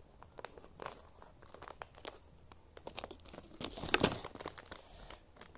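Small plastic packet cut with small scissors and pulled open: scattered crinkles and snips, with a louder burst of crinkling and tearing about four seconds in.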